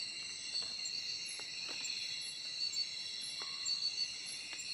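Night insect chorus, crickets and other insects shrilling steadily at several high pitches at once, with a few faint short ticks scattered through it.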